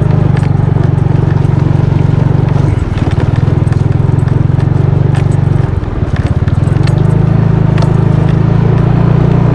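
Yamaha motor scooter engine running at low speed, with scattered knocks and rattles as the bike rides over a rough dirt path; the engine note drops briefly twice, about three and six seconds in.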